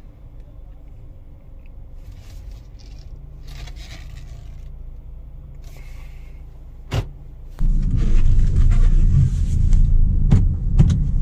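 Nissan Kicks cabin: the engine hums quietly at low speed with a few faint rattles and a sharp click about seven seconds in. Then a loud low rumble of the car driving on the road starts suddenly and keeps going.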